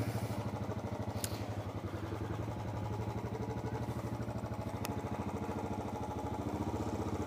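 Motorcycle engine running at low speed with a steady, even pulse while the bike is ridden slowly through a junction. Two faint ticks come about a second and five seconds in.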